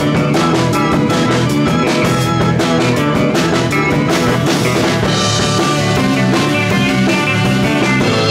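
Live surf and garage rock band playing: electric guitar and drum kit over a steady beat with sharp drum hits. A cymbal wash comes in about five seconds in.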